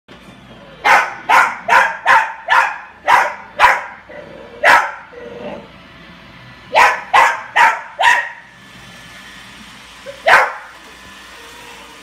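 Small dog barking at a robot vacuum: sharp barks in three bursts, a run of eight, then four, then a single bark about ten seconds in.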